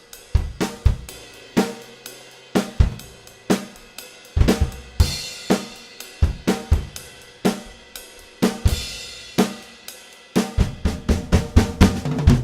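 Acoustic drum kit playing a groove of kick, snare, hi-hat and cymbals, recorded through a pair of overhead condenser mics with a close mic on kick and snare. The hits come about two a second, with a cymbal crash about five seconds in and a quicker fill of hits near the end.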